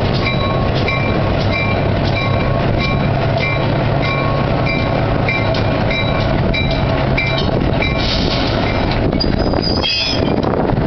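Fairbanks-Morse diesel locomotive running as it moves slowly, its opposed-piston engine a steady low drone, with its bell ringing about twice a second until a few seconds before the end. Near the end comes a brief high wavering squeal.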